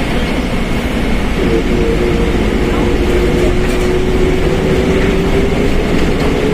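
Mercedes-Benz OF1721 BlueTec 5 bus on the move, its differential whining loudly: a steady pitched whine that drifts a little in pitch over the engine and road noise.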